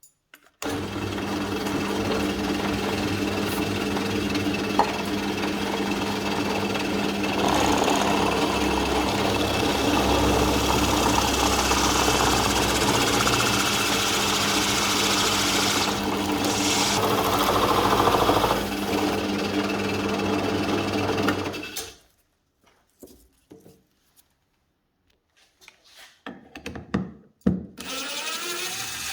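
Drill press motor running steadily while its bit bores a hole through a red plexiglass (acrylic) router base plate. The cutting noise grows louder in the middle while the bit is under load, and the motor stops at about 22 s. A few knocks and clicks of handling follow.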